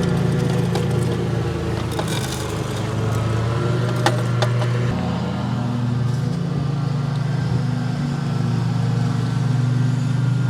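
Steady mechanical hum of a running motor, with a few sharp clicks about four seconds in.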